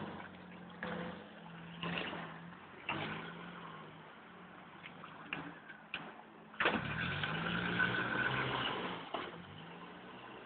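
Land Rover Defender engine revving in short bursts as it crawls through deep mud, then a longer, harder rev with rising pitch about six and a half seconds in that holds for a couple of seconds before easing off.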